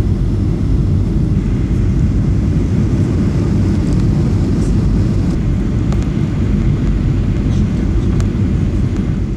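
Steady low rumble of a Boeing 737's jet engines and rushing air, heard from inside the passenger cabin.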